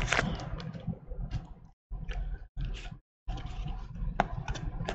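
Handling of trading cards: soft rustling and sliding with small clicks and a few sharp ticks, cutting to dead silence for brief moments.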